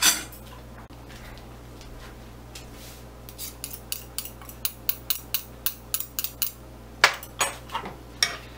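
Eating utensils (a spoon and a thin utensil, likely chopsticks) clicking and tapping against a nonstick frying pan while noodles and rice cakes are picked up. A quick run of light clicks starts about three seconds in, and a few sharper taps follow near the end.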